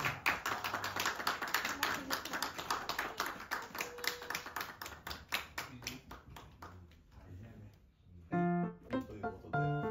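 Guests applauding, the clapping thinning out and fading over about seven seconds. Piano music comes in near the end.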